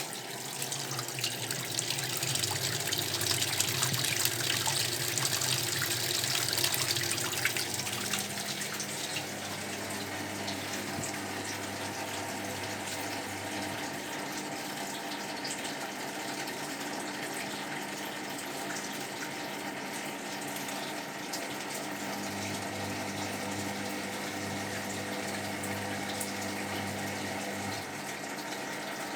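Zerowatt/Hoover Performa 1000 washing machine draining: its drain pump runs and pumps the wash water out. The rushing of water is loudest for the first eight seconds or so, then settles into a steady pump hum with water flowing.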